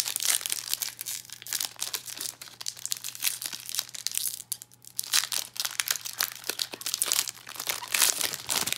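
Foil booster pack wrapper being torn open and crinkled in the hands: a dense run of crackling and rustling, with a short lull about halfway through.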